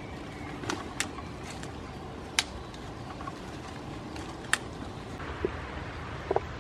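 Goats at a pile of log stumps and branches: a handful of sharp, short knocks and snaps, spaced irregularly, over a steady outdoor background noise.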